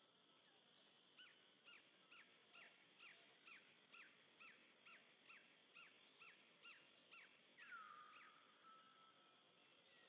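Faint animal calls: a run of short, falling, pitched notes at about two a second, then one longer note that slides down and holds steady near the end.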